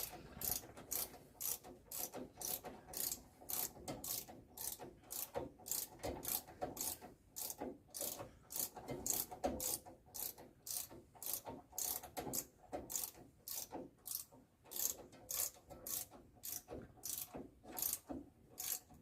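Ratchet wrench clicking in a steady rhythm, about two to three clicks a second, as bolts that need to be very tight are wound in on the Land Rover Discovery's brakes. The clicking stops near the end.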